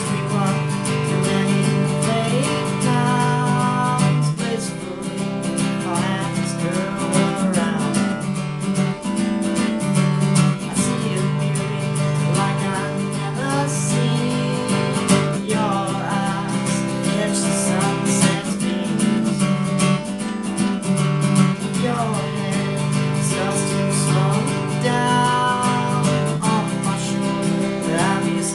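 Acoustic guitar strummed steadily, accompanying an original folk song, with a man's voice singing over it in several phrases.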